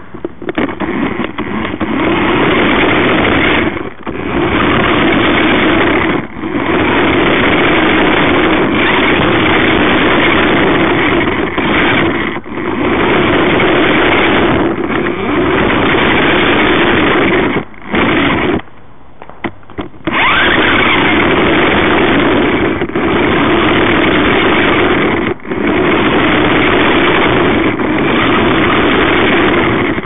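Remote control car's motor whirring close up as the car drives, cutting out briefly every few seconds and pausing for a second or so about two-thirds of the way through.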